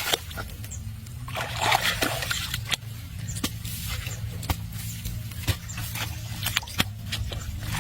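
Water sloshing and trickling with scattered small splashes and clicks, over a steady low hum.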